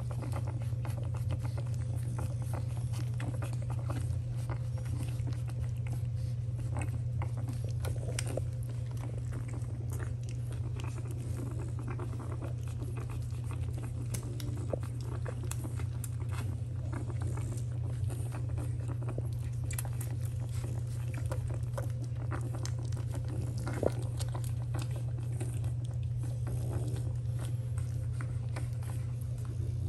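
Week-old French bulldog puppies suckling at their mother's teats: a steady run of small wet smacking and clicking sounds, over a constant low hum.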